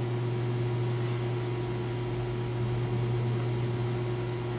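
Steady low electrical hum with a fainter higher tone over even background hiss: room tone.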